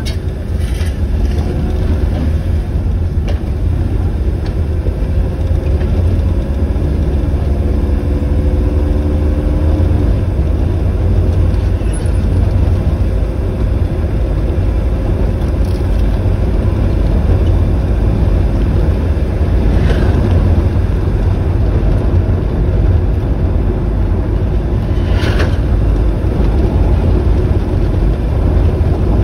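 Vehicle driving along a rough road: a steady heavy low rumble of road and wind noise, with a faint engine note rising slowly over the first ten seconds. Two short knocks or rattles come about two-thirds of the way through and near the end.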